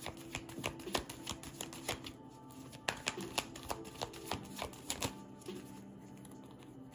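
A deck of oracle cards being shuffled by hand: a quick, irregular run of card flicks and slaps that thins out after about five seconds.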